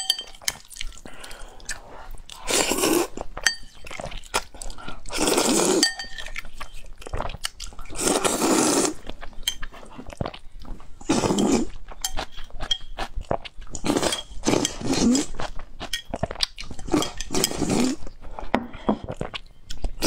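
Close-up noodle slurping: long strands sucked in through the lips with chopsticks, in about six loud pulls roughly three seconds apart, with chewing and small clinks of chopsticks on the ceramic bowl in between.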